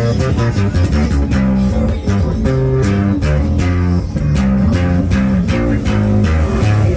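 Acoustic bass guitar being plucked, playing a continuous line of low notes that change every fraction of a second.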